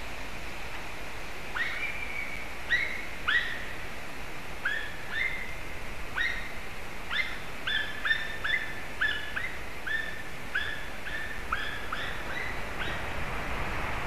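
White-tailed eagle calling: a series of about twenty short notes, each sliding sharply up and then holding. The notes begin after a second or so, come faster in the middle, and keep going until near the end, over a steady background hiss.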